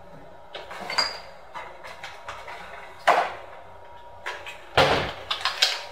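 Scattered kitchen clatter: a few separate knocks and clunks of things being handled at the counter and cabinets, the loudest about three seconds in and a quick cluster near the end.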